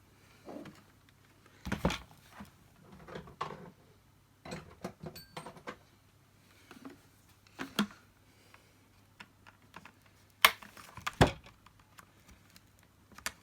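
Hard plastic parts of a Dyson DC50 vacuum being handled and taken apart: scattered clicks and knocks, with the two loudest knocks about ten and eleven seconds in.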